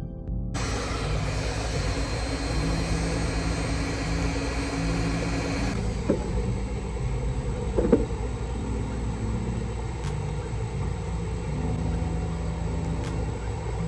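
Handheld electric heat gun running, its fan giving a steady rush of air over a low hum as it softens a vinyl sticker's adhesive on a bus's metal side. A couple of brief knocks come about six and eight seconds in, the second the loudest.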